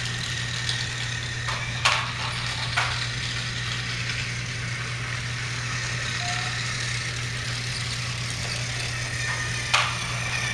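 Battery-powered TrackMaster toy trains running on plastic track: a steady low hum from their small motors and gears, with a few sharp clicks about two and three seconds in and again near the end.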